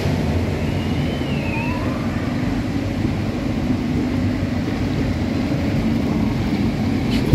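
Steady rumble and rush of a log flume's lift hill: water pouring down the lift ramp and the lift machinery running as the boat reaches it.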